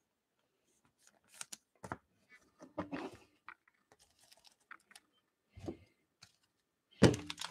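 Trading cards being handled by hand: sparse soft clicks and slides as cards are moved and set down. A louder burst of rustling comes near the end.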